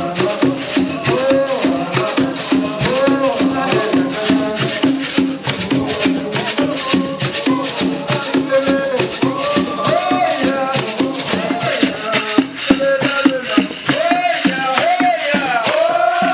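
Traditional dance music: rattles shaken in a steady, fast rhythm with voices singing a rising and falling melody over them.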